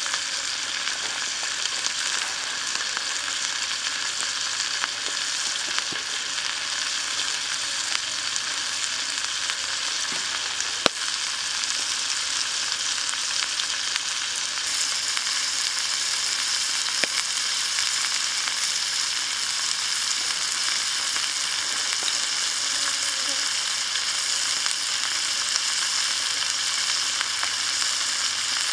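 A whole chicken with shallots, garlic and red chillies frying in oil in a pan: a steady sizzling hiss with a few sharp pops, a little brighter from about halfway.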